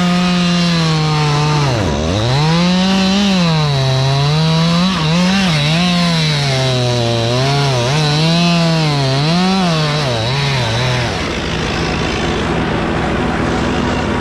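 Stihl two-stroke chainsaw cutting walnut wood, its engine speed rising and falling over and over as it bogs down in the cut and frees up again, with a deep dip about two seconds in. About three-quarters of the way through the saw drops out, leaving a steady engine hum.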